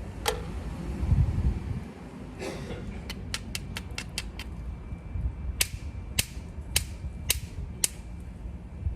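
Obsidian being knapped: sharp glassy clicks of stone on stone, first a quick run of light taps, then five louder strikes about half a second apart.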